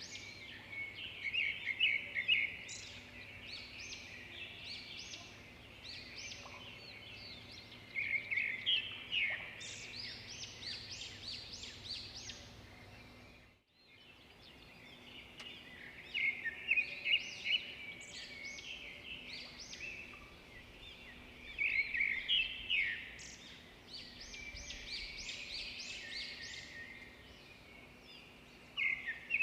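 Small birds chirping in clusters of quick, high calls, over a faint steady low hum. The sound cuts out briefly about halfway through.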